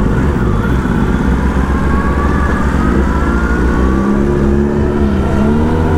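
Kawasaki Ninja ZX-10R inline-four with an SC Project S1 exhaust under way, heard under heavy wind rumble. The engine note rises slowly, dips about two-thirds of the way through, then climbs again near the end.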